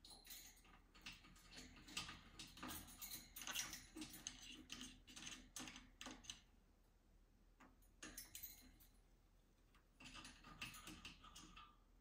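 Faint, irregular clicking and rustling of green-cheeked conures climbing about a wire cage, claws and beaks tapping on the metal bars, perches and toys. The clicking is busy at first, pauses a little past the middle, then comes back in two short spells.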